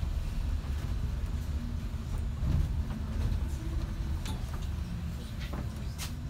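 Double-decker bus running, heard from inside on the upper deck: a steady low engine and road rumble with some shifting whine. A few short sharp rattles or ticks come in the second half, the sharpest near the end.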